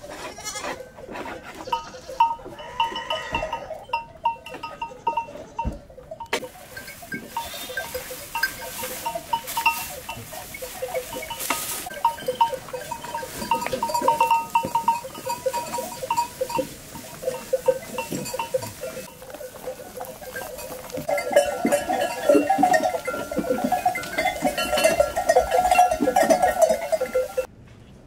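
A barnful of goats and kids bleating, many calls overlapping, louder near the end. Rustling and small knocks come from the animals at the feed trough.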